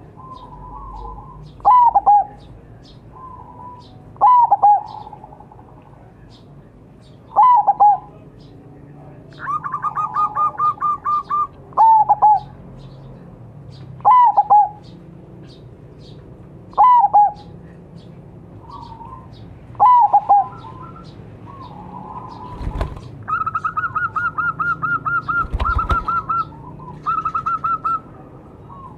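Zebra doves (perkutut) cooing: a short, falling coo repeated every two to three seconds, broken by runs of rapid staccato trilling notes about ten seconds in and again through the last six seconds.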